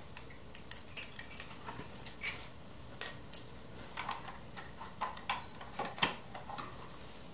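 Steel transfer-case internals clinking and knocking as the shaft and clutch drum assembly of a Porsche 958 Cayenne transfer case is handled and worked out of its aluminium housing. Scattered small clicks throughout, with a couple of sharper knocks about three and six seconds in.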